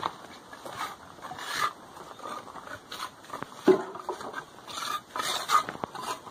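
Footsteps scuffing and crunching on gritty dirt, in an irregular run of short knocks and scrapes, with a sharper knock a little past halfway.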